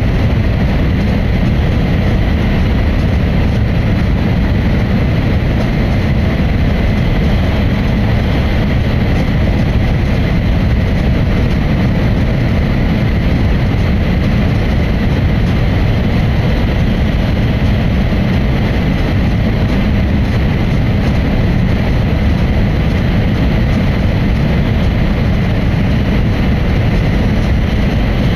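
Steady, loud running rumble of a Hokkaido Shinkansen train at speed, heard inside the passenger cabin as it runs through a tunnel, with a faint steady high tone above it.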